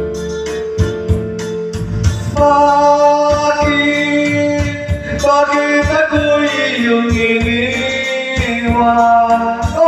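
Karaoke music: a backing track with a steady beat and long held melody notes, with a man singing along into a hand-held microphone.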